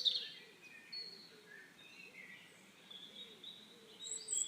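Faint background birdsong of scattered soft chirps, growing louder near the end.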